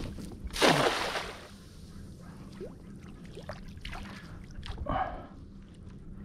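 A thrown cast net splashes down on the water about a second in, followed by faint water sounds as it sinks.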